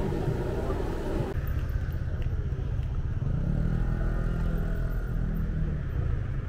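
Steady low rumble of motor traffic, with an engine passing close about three seconds in, its pitch rising and then holding for a couple of seconds before fading.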